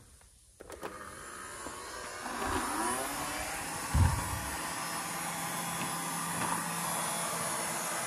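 Several robot vacuum cleaners starting up and running, their motors and brushes making a whirring that builds over the first couple of seconds and then holds steady. There is a short low knock about four seconds in as a robot's start button is pressed.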